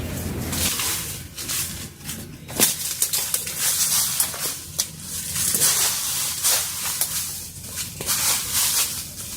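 Irregular rustling and crunching with sharp crackles, like dry leaves and twigs being trodden or handled.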